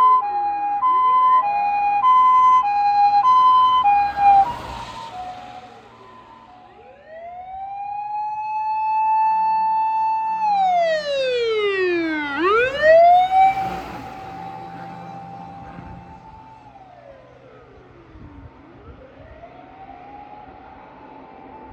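Sirens of fire department emergency vehicles on an emergency run. For the first few seconds a fast two-note hi-lo siren sounds over a wailing siren; after that the wail alone keeps rising, holding and falling. The sound swells loudest as vehicles go by at about four and about thirteen seconds in, then the wail continues fainter as they move away.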